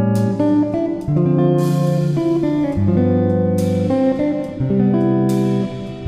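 Background music led by guitar: sustained chords that change every second or two, with strummed chords about four times.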